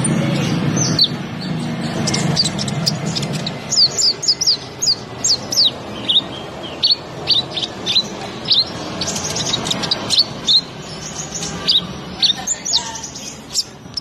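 Male Van Hasselt's sunbird (kolibri ninja) singing: a fast run of high, thin, downward-slurred chirps in rapid clusters, over a low rumble during the first few seconds.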